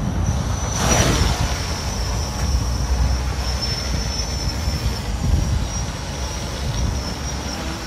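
Tricopter's three SunnySky 2212 980 kV brushless motors spinning 10-inch propellers, a steady whir with a thin high whine as it lifts off and flies, with a louder rush about a second in.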